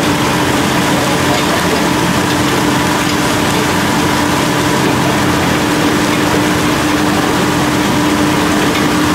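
Heavy machinery of a menhaden purse-seine boat, its engines and fish pump, running with a loud, steady drone and a held hum while the pump hose draws fish from the net.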